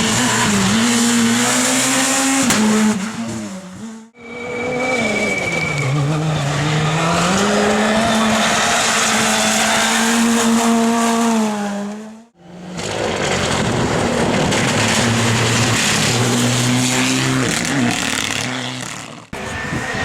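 World Rally Cars' engines running hard on a stage, the pitch rising and falling as the drivers rev and shift. The sound breaks off abruptly about four seconds in, about twelve seconds in and again near the end, between separate passes.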